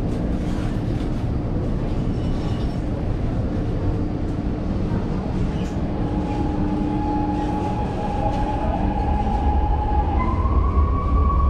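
Metro train running, with a steady low rumble. A whine that glides in pitch comes in about six seconds in, and a second, higher whine joins near the end as the sound grows louder.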